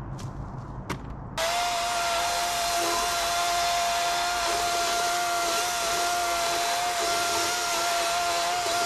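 Chainsaw, quiet for the first second and a half apart from a few clicks, then running at a steady high speed with an even whine to the end.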